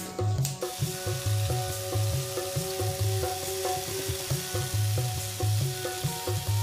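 Coconut chicken stir-fry sizzling in a nonstick kadai as it is stirred, a steady frying hiss, under soft background music with held notes.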